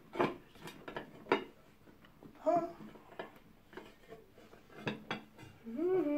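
Bowls and plates clinking and knocking against each other and the table as upturned covering dishes are lifted off plates of food: a handful of sharp clinks. A couple of short vocal sounds from a person come in between, one near the end.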